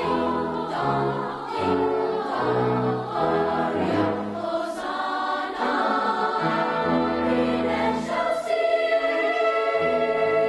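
Choir singing, moving through changing chords and settling on a long held chord about eight and a half seconds in.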